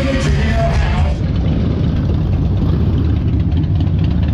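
Live music with a crowd cuts off about a second in, giving way to a steady low rumble of motorcycle engines idling.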